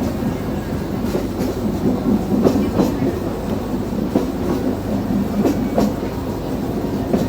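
Train running along the rails: a steady rumble with scattered clicks from the wheels.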